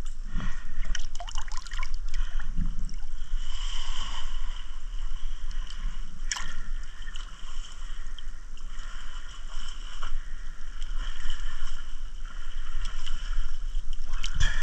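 Water sloshing and gurgling in uneven surges, with a steady low hum underneath and one sharp click about six seconds in.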